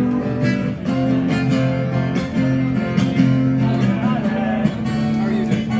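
Music with plucked strings and a steady run of notes.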